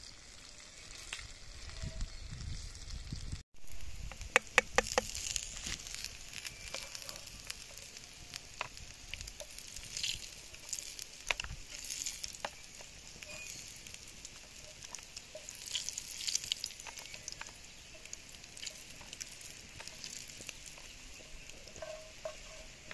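Salted fish frying in hot oil in a frying pan, a steady sizzle with crackling pops, as a wooden spatula turns the fish. A quick run of sharp knocks comes about four and a half seconds in.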